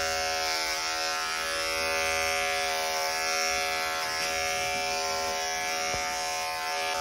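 Andis EasyClip Pro corded dog clipper with a 10 blade, running with a steady, even hum as it clips the fur under a puppy's armpit.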